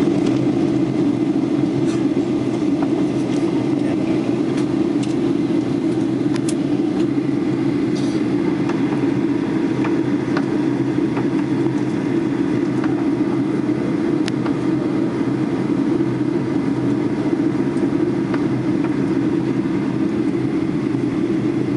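Steady drone of an airliner cabin in flight, engine and airflow noise heard from inside the passenger cabin, unchanging throughout, with a few faint clicks.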